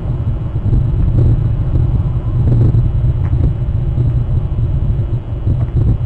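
Steady low outdoor rumble with a few faint ticks.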